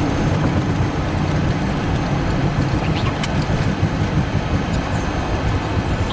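Steady low rumble of a moving vehicle heard from inside, with a few faint clicks about three seconds in.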